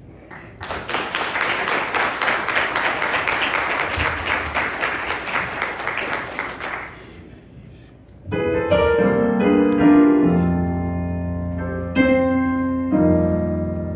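Congregation applauding for about six seconds, then an electric keyboard starts playing sustained chords about eight seconds in.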